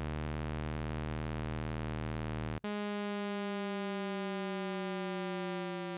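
Arturia Pigments software synthesizer's harmonic (additive) engine sounding a droning note built from many stacked sine partials under Shepard-tone partial modulation. About two and a half seconds in, the sound cuts out for an instant and comes back without its lowest tones. Its partials then glide slowly downward in pitch, the Shepard-tone illusion of an endless descent.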